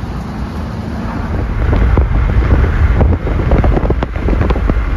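Wind buffeting the microphone of a phone filming from a moving car, over a low road rumble; it grows louder about a second and a half in.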